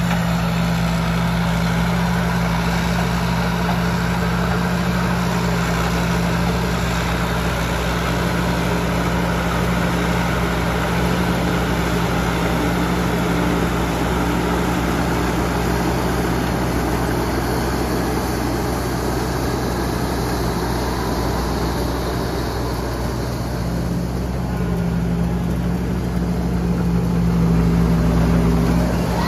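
Tamco S7000 combine harvester running steadily while harvesting corn: a loud, even drone of its diesel engine and threshing machinery. It grows louder near the end as the machine comes closer.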